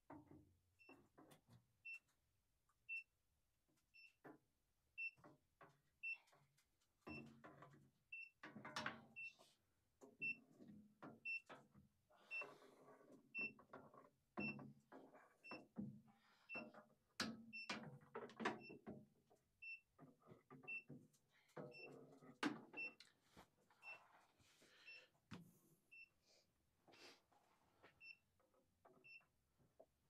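Klein Tools ET120 combustible gas leak detector giving a faint, steady, high-pitched tick about once a second. Irregular knocks, scrapes and rustling from handling are louder than the ticks.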